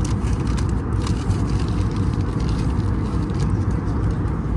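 Steady low rumble of restaurant background noise, with faint light clicks scattered through it.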